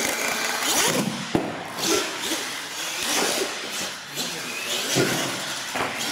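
Radio-controlled monster truck's motor whining, rising and falling in pitch as the truck speeds up and slows, with a sharp knock about a second in.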